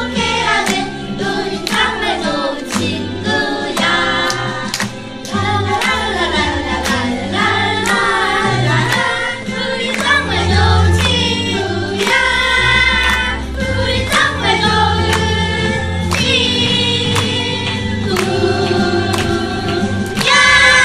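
A musical-theatre song: a group of voices singing together in chorus over an instrumental accompaniment with a steady beat and bass.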